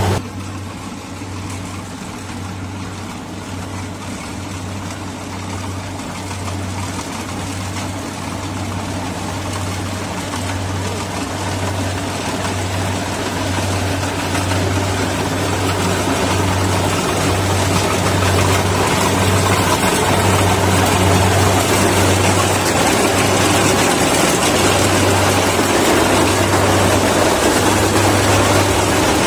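Kubota rice combine harvester running as it cuts rice, a steady engine and machinery noise with a low hum that throbs about once a second, growing louder as the machine comes closer.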